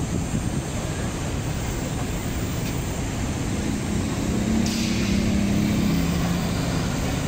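City street traffic noise, with a vehicle engine passing in the middle: its hum rises, peaks and falls slightly in pitch as it goes by.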